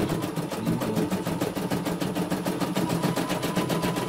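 CNY E900 computerized embroidery machine stitching: a rapid, even clatter of needle strokes with a faint steady whine underneath.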